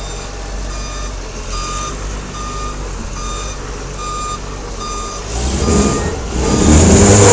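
A vehicle's reversing alarm beeps steadily, about once every 0.8 s, over a running engine. Near the end the engine grows louder and a loud rushing hiss rises over it.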